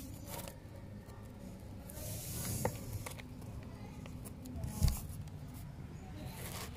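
Kittens moving about in a cardboard box lined with newspaper: light scratchy rustling of paper and cardboard with a few small clicks, and a dull thump about five seconds in.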